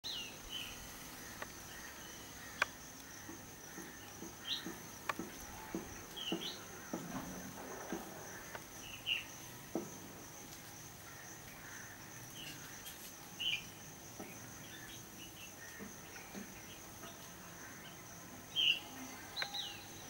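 A steady high-pitched insect drone, with short bird chirps every second or two and scattered light clicks.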